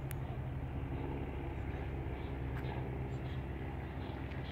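Car engine running steadily at low revs, a low even hum, with a few faint high ticks here and there.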